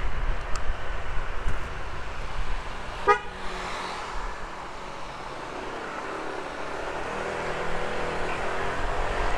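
Wind rushing on the microphone over a Honda PCX 150 scooter's single-cylinder engine as it slows, with one short horn toot about three seconds in; near the end the engine note rises as the scooter pulls away again.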